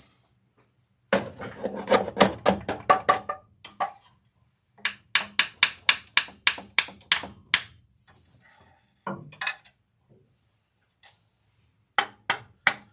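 Hammer blows on metal under the truck's hood: a quick run of about a dozen sharp strikes, a short pause, a second steady run of about ten at roughly three a second, then a few scattered blows and three quick ones near the end.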